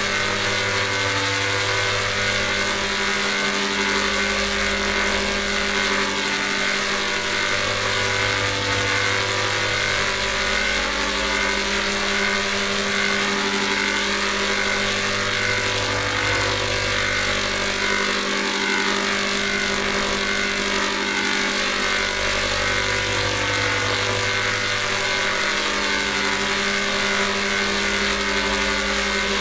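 Heavily processed electronic drone made of layered, pitch-shifted copies of one sound (a 'G major' audio edit), with a hiss over it. A low hum under it comes and goes about every seven to eight seconds.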